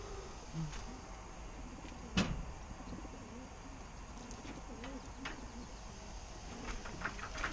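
Many racing pigeons cooing in the crates of a pigeon transport truck, with a single sharp knock a little over two seconds in and a few light clicks near the end.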